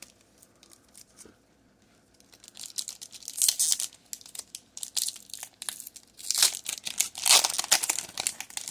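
A foil Pokémon booster pack crinkling and tearing as it is ripped open by hand. The crinkling starts about two and a half seconds in and is loudest near the end.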